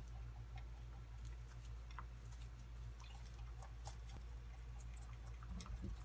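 Pet rabbits eating, their chewing and crunching heard as many small, irregular clicks, over a steady low hum.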